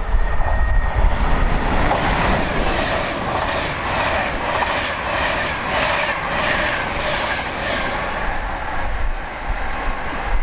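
A train passing at speed, its wheels beating on the rails in a regular rhythm about twice a second that swells and fades away near the end. Wind buffets the microphone throughout.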